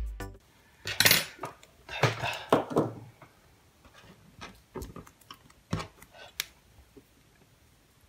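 Small metal tools and parts clinking and clattering on a wooden desk for a few seconds: tweezers and a soldering iron are set down and the metal pieces of a USB plug are handled. The clatter is busiest in the first couple of seconds and then thins to a few light clicks.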